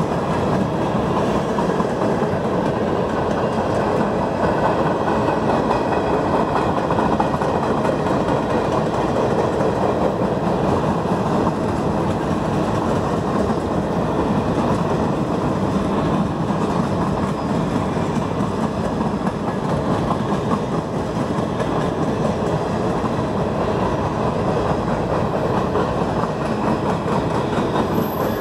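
Freight cars of a CN train rolling past close by: a steady, unbroken noise of steel wheels running on the rails.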